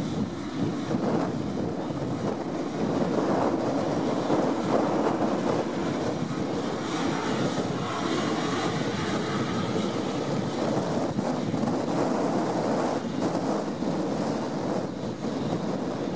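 Boeing 777-300ER's GE90 turbofan engines running steadily at low taxi thrust as the airliner rolls by: an even jet noise with a faint held tone underneath.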